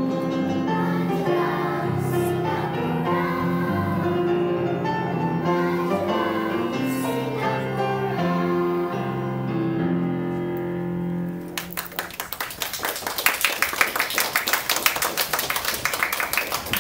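Voices singing a national anthem with long held notes; the song ends about eleven and a half seconds in and applause follows.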